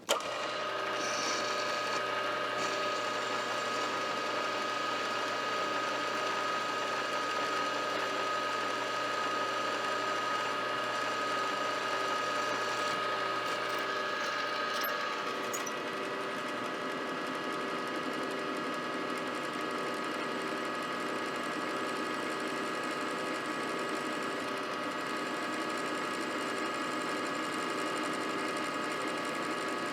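Milling machine running steadily, its motor and spindle starting abruptly, with a steady whine and an even rhythmic beat; the tone shifts and the low hum drops away about halfway through.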